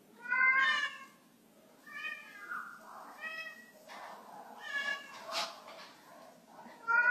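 Domestic cat meowing five times, the first meow the loudest and the last starting near the end.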